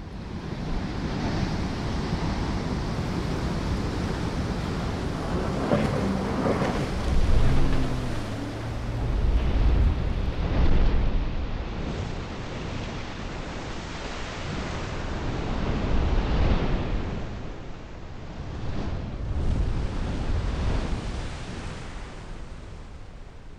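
Huge ocean waves breaking in big-wave surf, the rush swelling and easing several times, with wind blowing on the microphone.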